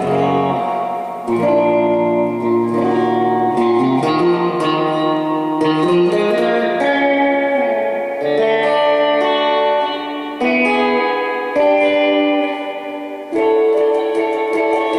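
Electric guitar, a Fender Jaguar, played clean through a Gomez El Sonido Bassman-clone tube amp and a Nocturne F-Bomb 63 reverb unit: picked surf-style chords and melody notes that ring into one another, with a note sliding up partway through.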